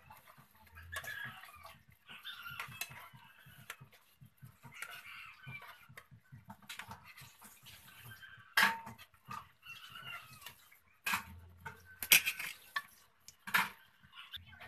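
A spatula knocks and scrapes against a frying pan, with a few sharp clacks about halfway through and near the end. Short clucking bird calls come and go in the background.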